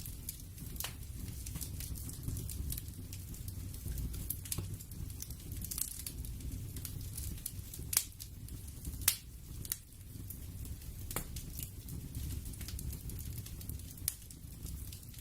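Crackling fire ambience: a steady low rumble with scattered sharp pops and snaps, two of them louder just past the middle.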